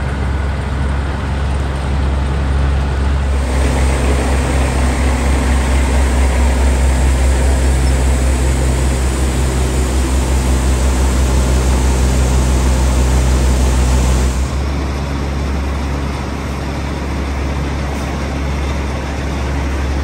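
A large engine running steadily with a deep, even drone and a slight regular pulse. It becomes quieter and changes tone about fourteen and a half seconds in.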